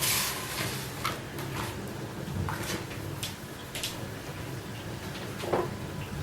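Kitchen handling sounds: a short rustling burst at the start, then a series of light clicks and knocks, with one louder clatter near the end, over a steady low hum.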